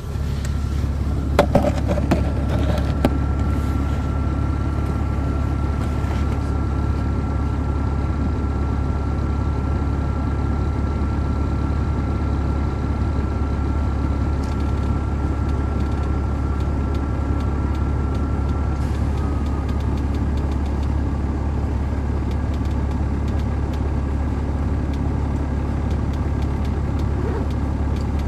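Caterpillar C13 inline-six diesel of an MCI D4500CL coach idling, heard from on board as a steady low rumble. A few knocks come in the first seconds, and a thin steady whine over the engine stops about two-thirds of the way through.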